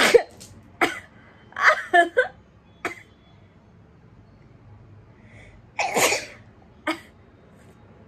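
A woman sneezing and spluttering with a mouthful of water, set off by sneezing powder. There is a loud burst at the start, a quick cluster around two seconds in, and another strong burst about six seconds in, with shorter splutters between.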